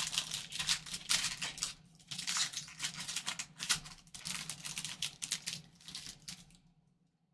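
Foil trading-card pack wrapper crinkling and tearing as it is ripped open by hands in nitrile gloves and the cards are slid out, in quick irregular rustles. It stops about a second before the end.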